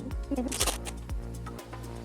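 Background music with a steady beat, and a short hissing burst about half a second in.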